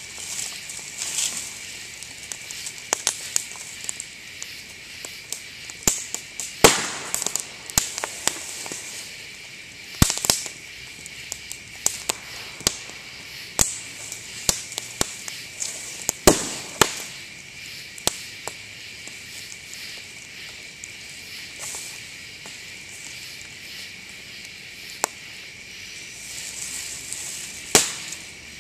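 Bamboo stalks burning in a campfire, bursting with sharp pops and crackles at irregular intervals, the loudest about 6, 10, 16 and 28 seconds in: heated air and steam trapped in the sealed nodes blow the stems open. A steady high insect chirring runs underneath.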